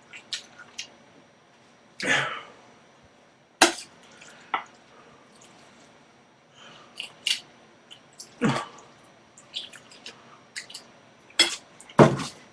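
Eating from a metal bowl: a utensil clicks and scrapes against the bowl now and then, with short wet chewing and mouth sounds between.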